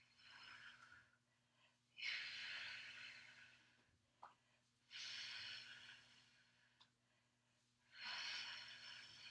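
A woman's exertion breathing: three long, strong exhales about three seconds apart, each starting sharply and fading away, with a fainter breath near the start.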